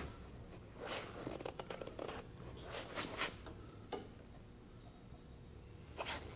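A torque wrench tightening a brake-line banjo bolt on a motorcycle's front brake caliper: faint short clicks and scrapes of the tool and fitting, a sharp one about four seconds in.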